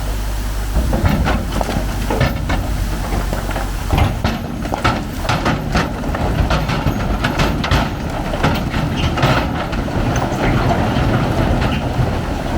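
Riprap boulders sliding and tumbling out of a dump truck's bed, starting about a second in: a continuous low rumble with many irregular knocks and clatters of rock on rock, over the truck's running engine.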